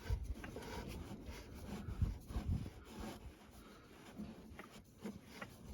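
Faint rubbing and a few light knocks as a spin-on oil filter is threaded on by hand in a cramped spot on an ATV engine.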